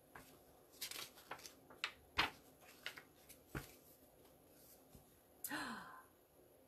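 Faint clicks and rustles of a paper picture book being handled as its page is turned, then a short breathy sound near the end.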